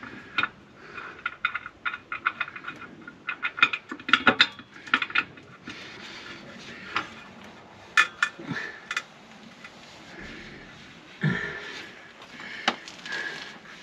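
Irregular small metallic clicks and clinks of the underslung spare wheel carrier's fittings as its plastic-headed retaining nut is threaded on by hand, up to finger tight.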